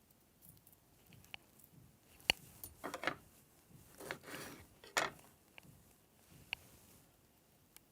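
Kitchen prep sounds as a lemon is cut and squeezed over the salad: a few sharp knocks of a utensil against a board or bowl, about two and five seconds in, with short rustling, squishing sounds between them.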